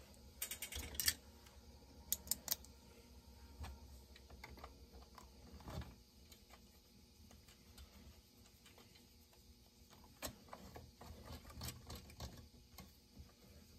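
Faint, scattered clicks and light knocks of chainsaw parts being handled and fitted by hand as the handlebar goes onto the saw. A cluster of sharp clicks comes in the first three seconds and more ticks near the end.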